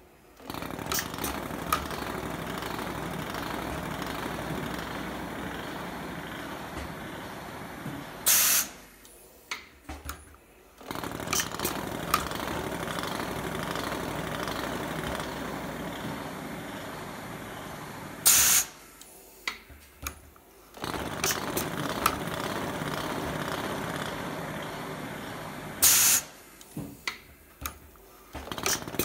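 PrepStar automatic weft-removal machine running through its thread-removal cycle on a forming fabric: a steady mechanical running noise for several seconds at a time. Three times it ends in a short loud hiss and a few clicks, then pauses for about two seconds and starts again.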